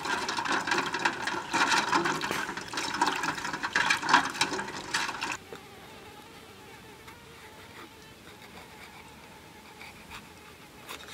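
Duck eggs being washed by hand in a steel bowl of water: splashing and sloshing that stops abruptly about halfway through. After that, only faint insect buzzing remains.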